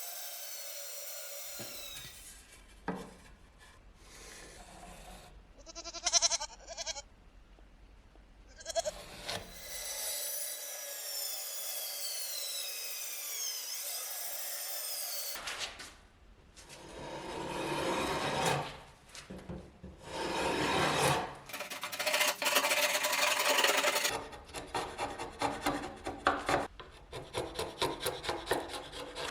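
Wood being worked with a rasp and rubbed, in several short cuts of repeated scraping strokes. One stretch carries gliding high-pitched whines.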